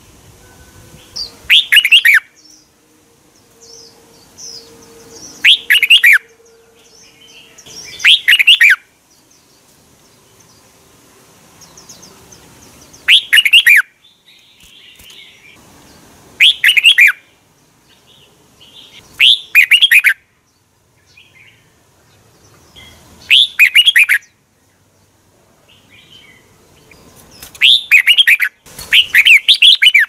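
Red-whiskered bulbul singing short, loud, warbling phrases, one every three to four seconds with quiet gaps between them, and two in quick succession near the end.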